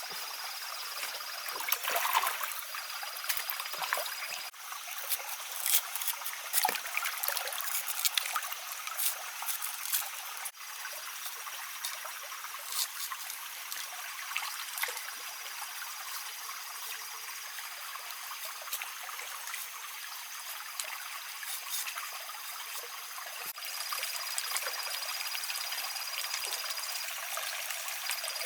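Water trickling and running steadily, like a small forest stream. A thin, high, steady tone breaks off and starts again several times over it, and there are a few light clicks and knocks.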